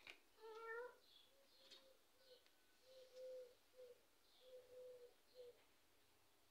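Faint kitten mew about half a second in, followed by a run of soft, low, short calls spread over the next few seconds, with a faint tap at the very start.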